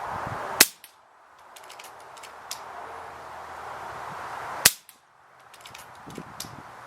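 Two shots from an FX Impact PCP air rifle firing 25-grain slugs at steel spinner targets, each a sharp crack, about four seconds apart. Fainter clicks fall between the shots.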